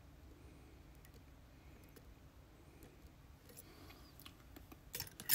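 Small metallic ticks and clicks from lock-picking tools working a pin-tumbler lock, faint at first, with a few sharper, louder clicks near the end.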